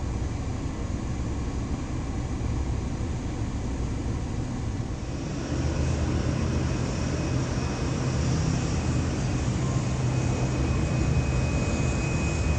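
Jet airliner engines with a low rumble. About five seconds in they grow louder, and a hiss and a steady high whine join in.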